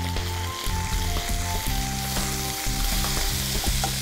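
Spice paste and ground spices sizzling in hot mustard oil in a frying pan as a spatula stirs them, with background music of held notes underneath.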